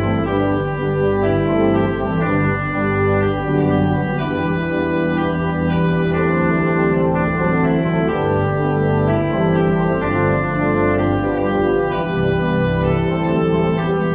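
Church organ playing sustained chords that change about once a second over held bass notes.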